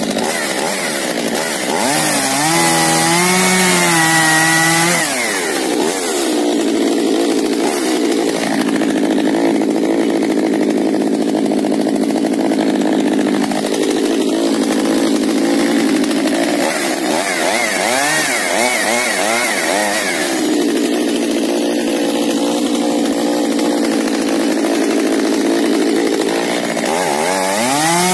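Echo pruning chainsaw's two-stroke engine revving and cutting wood with its freshly sharpened chain. Its pitch swings up and down about two to five seconds in, then holds steadier under load, with more rises and falls later on and near the end.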